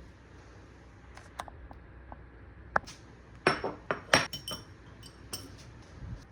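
Dishes and utensils clinking: scattered light taps, then a cluster of louder, briefly ringing clinks about three and a half to four and a half seconds in.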